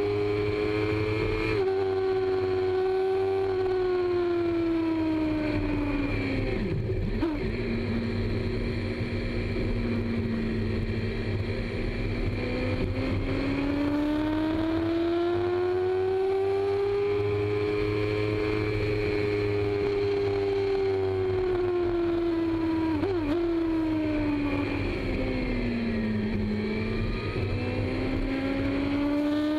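Sport motorcycle engine heard on board while riding, its pitch rising and falling slowly as the rider opens and eases the throttle, with a sharp drop in pitch about seven seconds in, over a steady low rumble of wind and road.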